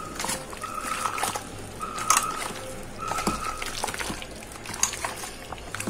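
A hand squishing and mixing marinated chicken pieces in a steel bowl, making wet squelching and sloshing sounds with scattered clicks. A short high tone repeats about once a second behind it.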